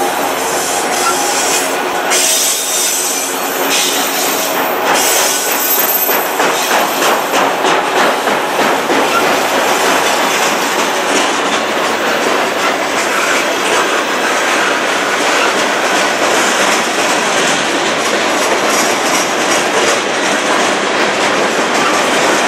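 Freight train's cars rolling past close by: steel wheels clicking over rail joints in a rhythmic clatter, over a steady rumble and rattle of the autoracks and lumber-loaded flatcars.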